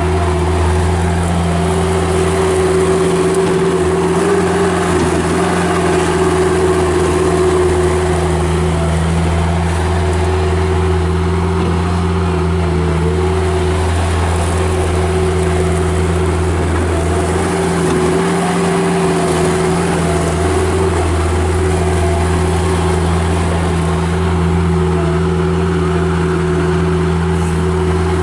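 Kubota diesel engine of a Bobcat 751 skid steer loader running steadily at a constant pitch, with only a slight, brief change in its low note partway through.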